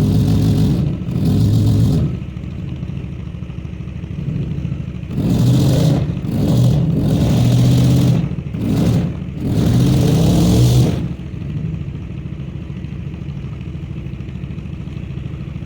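The 4.6-litre engine of a 1991 Honda Accord 4x4 death-race car revving hard in repeated bursts, twice near the start and five more times between about five and eleven seconds in, then dropping back to a steady idle. It is working under load, trying to pull a backhoe out of its spot.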